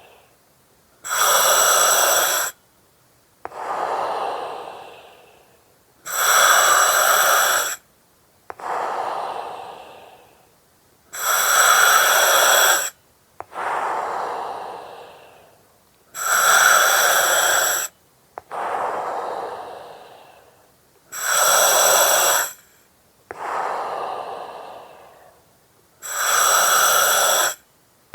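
Slow, regular breathing through an oxygen mask, about one breath cycle every five seconds. Each cycle is a loud, hard-edged hiss lasting about a second and a half that cuts off abruptly, followed by a softer breath that fades away.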